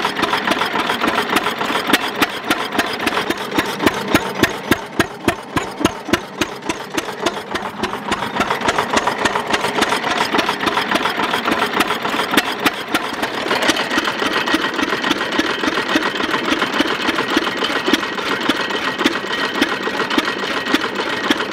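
Ruston & Hornsby AP 6 hp single-cylinder stationary engine running steadily, with a fast, even clatter from its valve gear and firing.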